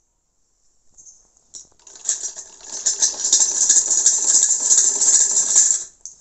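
Hand-cranked sewing machine running, a rapid metallic clatter of needle and mechanism as the wheel is turned. It starts about two seconds in and stops suddenly near the end.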